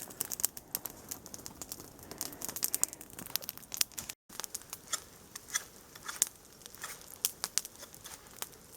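Small wood campfire crackling, with irregular sharp snaps and pops. The sound drops out completely for a moment about four seconds in.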